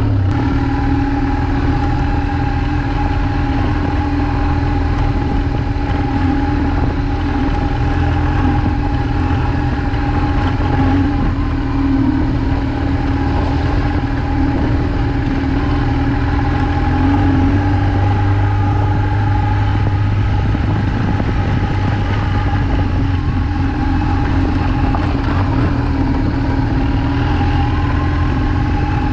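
BMW R1200GS's boxer-twin engine running steadily at low speed, an even unchanging engine note.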